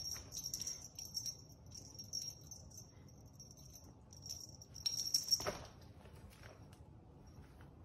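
Small jingle bell on a cat's feather wand toy jingling in quick bursts as a Siamese kitten bats and bites it, with soft scuffs and clicks of play on a plastic sheet. The jingling is loudest about five seconds in, then stops, leaving a few faint ticks.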